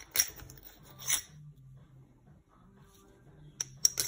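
A few short scrapes and clicks of brake caliper slide pins being handled and rubbed by hand: two early on, then three in quick succession near the end.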